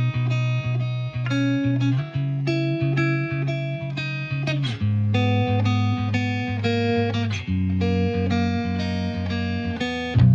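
Background music: a plucked guitar playing a repeating pattern, with the chord changing every couple of seconds and the music growing fuller near the end.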